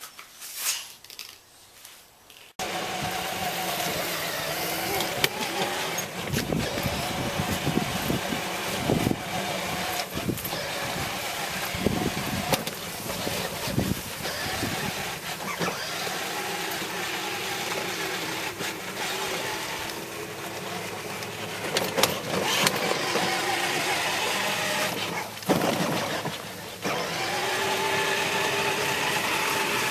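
Battery-powered 12V Kid Trax Mini Cooper ride-on car driving on pavement: a wavering electric-motor whine over a steady rumble of hard plastic wheels. It starts abruptly a couple of seconds in and dips briefly near the end.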